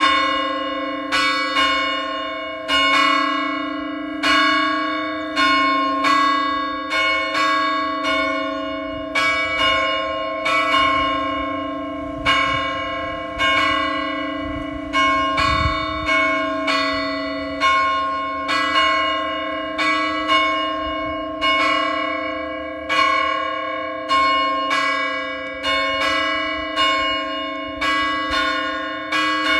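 Church bells ringing without a break, a fresh stroke about every three-quarters of a second. The long ringing tones of at least two bells overlap as each rings on into the next stroke.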